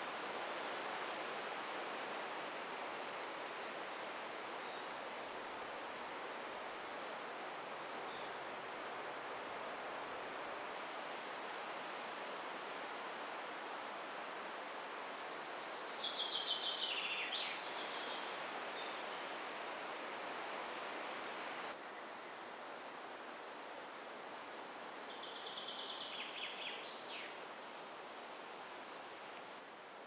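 Steady rustle of wind through the forest leaves, with a songbird calling twice, about halfway through and again near the end: each call a quick trilled phrase that ends in a fast downward slide.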